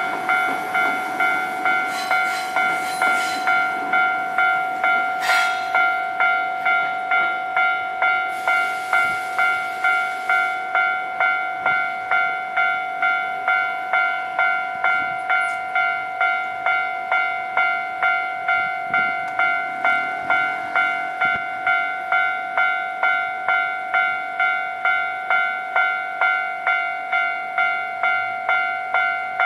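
Japanese railway level-crossing warning bell ringing over and over, an even electronic ding just under two strikes a second. In the first ten seconds a train's running noise lies under it, with a hiss about nine seconds in.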